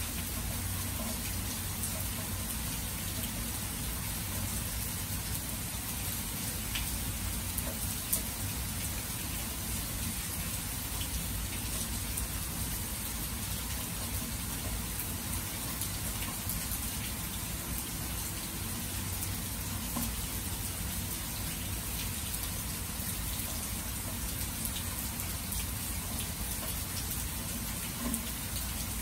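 Steady rain falling, an even hiss with faint scattered ticks of individual drops.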